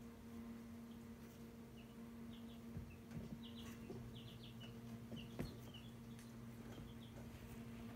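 Chicks peeping faintly: short high chirps, some in quick runs of two or three, over a steady low hum. A single sharp knock about five and a half seconds in.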